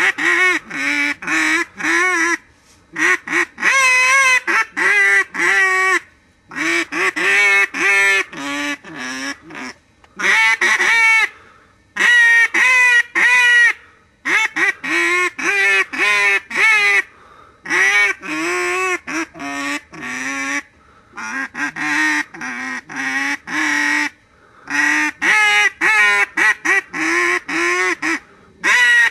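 A duck call blown as a melody, playing a tune note by note in short phrases separated by brief pauses.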